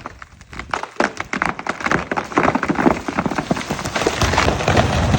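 Pine wood cracking and splintering: a dense run of sharp snaps and cracks that thickens and grows louder about a second in.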